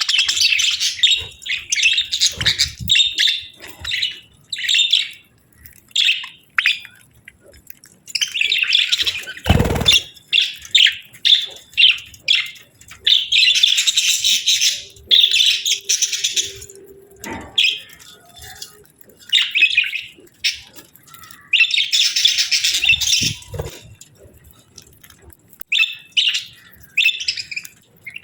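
A pair of budgerigars chirping and chattering in fast warbling bouts with short pauses between them, with one dull thump about ten seconds in.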